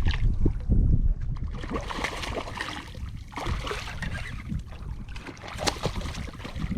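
Water splashing and irregular knocks against a kayak as a freshly caught black drum is handled, with low wind rumble on the microphone, strongest in the first second.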